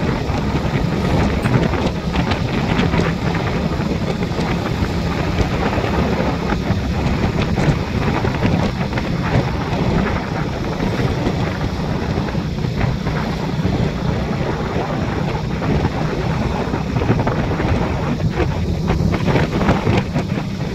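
Wind rushing over the microphone with the steady drone of the vehicle's engine and tyres while riding along the highway at speed.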